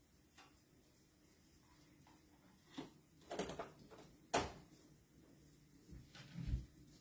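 Kitchen handling sounds: a few light knocks and clicks as items are moved on the counter and stove, the sharpest about four and a half seconds in, then a low thump near the end from a wall cabinet door.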